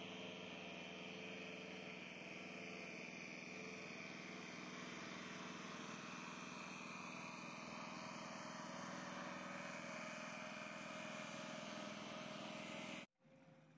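Small petrol engine of a portable water pump running steadily at a constant speed, pumping water out of a rain-flooded trench. It cuts off suddenly near the end.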